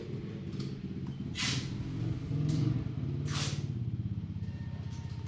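A motor engine running steadily, with short bursts of hissing about two seconds apart.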